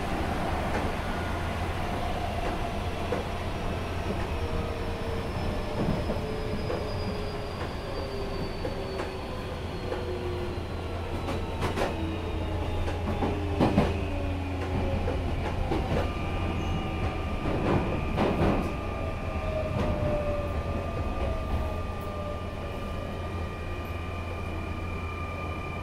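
Nankai 9000 series electric train heard from inside the car. Its VVVF inverter whine falls slowly in pitch as the train slows, over a steady running rumble, with a few sharp wheel clatters over rail joints around the middle. About two-thirds through, the whine settles into a steady high tone.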